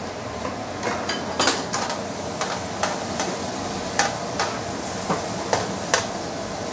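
Meat sizzling on a hot electric grill plate while metal tongs turn it over, tapping and scraping against the plate in about a dozen sharp, irregular clicks.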